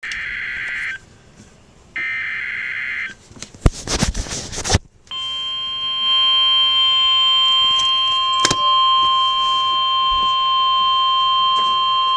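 Emergency Alert System severe thunderstorm warning: two buzzy digital data bursts of about a second each, a short crackle of static, then from about five seconds in a steady single-pitch alert tone, a little above 1 kHz, that holds without a break.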